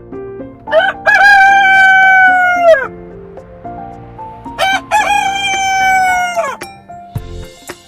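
Rooster crowing twice, each crow a long cock-a-doodle-doo that holds its pitch and then falls away at the end. Soft background music plays beneath.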